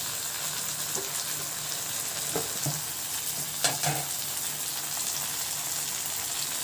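Onions, tomatoes and green chillies frying in mustard oil in a kadhai, a steady sizzle, with a few short knocks around the middle.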